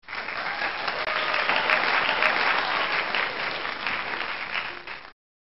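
Applause, clapping that starts suddenly and cuts off abruptly after about five seconds.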